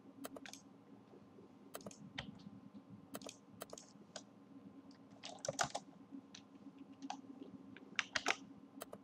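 Computer keyboard keys being pressed in scattered small clusters, a few sharp clicks at a time, over a faint steady hum.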